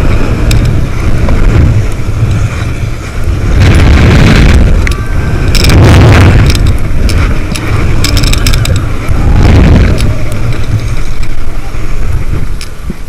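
Heavy wind buffeting the microphone as the Booster ride's arm swings the rider through the air, with loud rushing whooshes about four, six and nine and a half seconds in.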